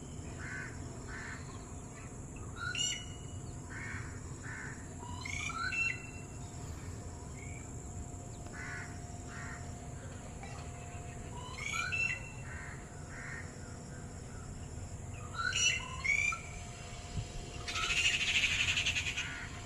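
Red-whiskered bulbuls calling: short, bright chirping phrases of rising notes every few seconds, some loud and some faint. Near the end comes a harsh rasping burst of about a second and a half.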